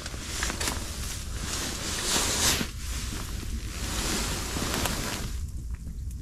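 Wind rushing against the fabric walls of an ice-fishing tent, a hiss that swells and eases, strongest about two seconds in and falling away about five and a half seconds in.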